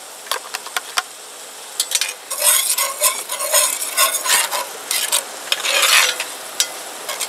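Diced celery and onions sizzling in melted butter in a cast-iron Dutch oven, with a metal spoon clicking, then scraping and stirring against the pot; the stirring gets louder about two seconds in.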